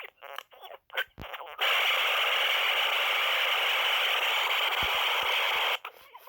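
A 2001 re-release Furby's speaker glitching: about a second and a half of choppy, broken sound fragments, then a loud steady burst of static hiss that cuts off suddenly near the end, followed by more chopped fragments. The glitches come from its power being interrupted by the battery compartment being opened and shut.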